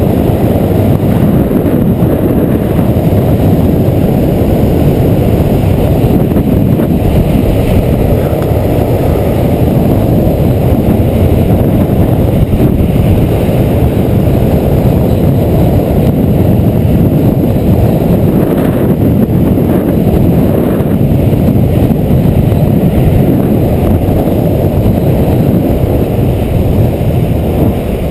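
Heavy wind rushing over the camera's microphone at downhill longboarding speed, mixed with the rumble of urethane wheels on asphalt; steady and loud throughout.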